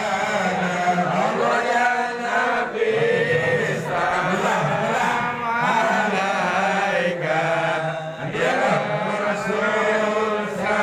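Voices chanting together in a steady, continuous recitation.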